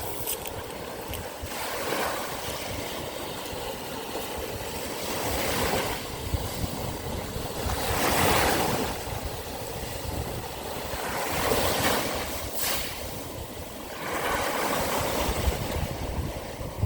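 Sea waves washing onto the shore, a surge swelling and falling away every few seconds, with wind rumbling on the microphone.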